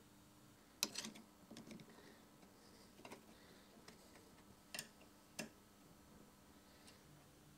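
Scattered light metal clicks and taps as an old chisel is set into the steel clamp of a sharpening-attachment holder and tightened with a screwdriver. The loudest click comes about a second in, with two sharp ones near the five-second mark.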